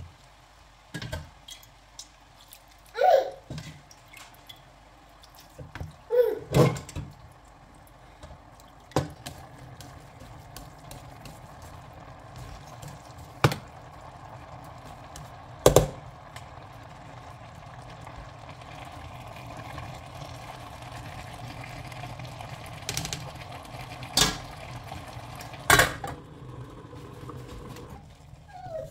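Sauce ladled over rice in a stainless steel pot, and a metal ladle and spatula knocking against the pot's rim several times as the rice is mixed. A steady low hiss builds up in the second half.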